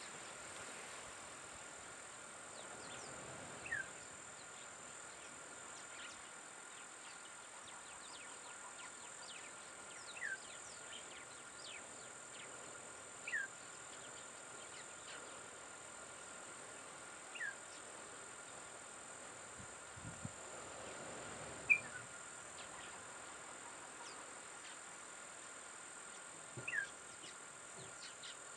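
Bush ambience: a steady high-pitched insect drone, with a bird giving short falling whistled calls every few seconds and one sharper, louder chirp about three-quarters of the way through.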